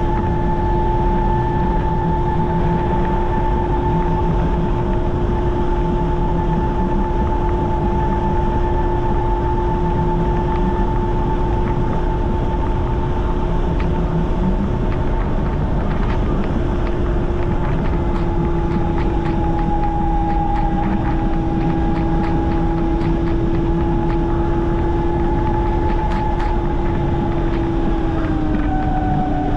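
Ryvid Anthem electric motorcycle riding along, its motor whining at a steady pitch under heavy wind noise on the microphone; the whine dips slightly in pitch near the end.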